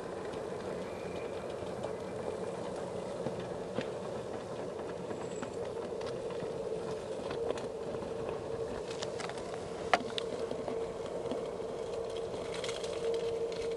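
Traxxas TRX-4 Defender 1/10-scale RC rock crawler's electric motor and gear drivetrain whining steadily at crawling speed, with scattered clicks and scrapes of the tyres on rock. One sharp click about ten seconds in is the loudest sound.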